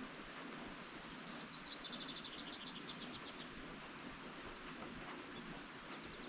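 Steady rain falling. About a second in, a songbird sings a fast trill of rapid high notes lasting about two seconds.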